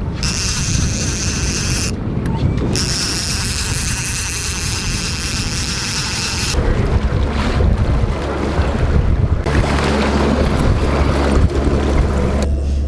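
Motorboat running on open water: a steady low engine drone under wind buffeting the microphone and rushing water. The sound changes abruptly several times.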